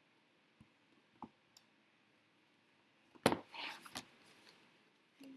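Handling noise: a few faint clicks, then about three seconds in a sharp knock, a short rustle and a second knock.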